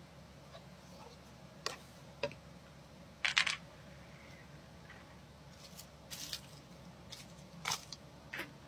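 Small clicks and taps of watch repair tools being picked up and set down on a table: a plastic strap-holder block and loose metal strap pins. About eight short, sharp knocks, the loudest a quick cluster about three seconds in.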